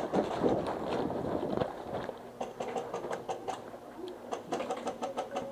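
Footsteps and rustling of gear as a player on foot moves through a plywood maze, turning into a string of sharp clicks and taps about two seconds in.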